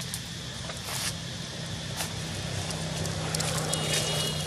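A steady low motor hum, a little stronger in the second half, with scattered light clicks over it.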